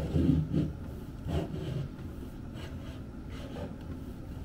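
Irregular rubbing and scraping as a push rod carrying a small inspection camera is slid up into a wall cavity. It is strongest in the first half second, with another short scrape about a second and a half in, over a low steady hum.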